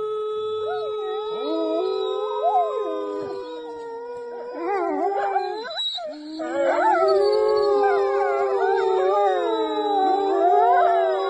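Wolves howling in chorus: a few rising and falling howls from about a second in, building to many overlapping howls from about halfway, over a steady held tone.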